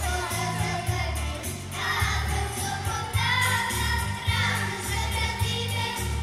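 Children's vocal group singing together into microphones over recorded pop accompaniment with a steady bass beat.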